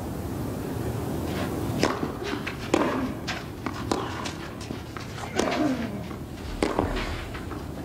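Tennis rally on a clay court: sharp racket strikes and ball bounces about every half second to a second, over a steady murmur from the crowd.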